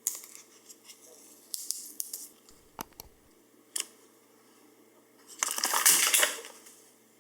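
Apple EarPods packaging being opened by hand: a run of small clicks and taps, then a louder rustle of the packaging about five and a half seconds in, lasting about a second.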